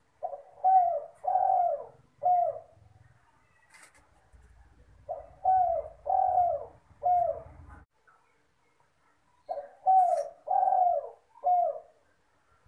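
Spotted dove (derkuku, tekukur) cooing its song. Three phrases come about four seconds apart, each of four coos, with the middle coos longer than the first and last.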